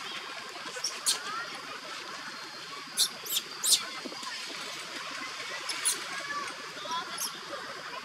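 Baby long-tailed macaque crying in distress while adult monkeys pull at it: short shrill squeals, about a second in, three in quick succession around three to four seconds in, and more near six and seven seconds in, with softer chirping calls between.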